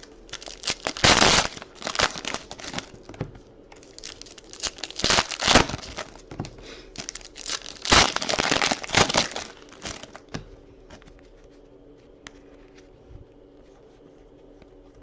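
Trading-card pack wrappers being torn open and crinkled, in several loud rips over the first ten seconds, then only faint handling of the cards.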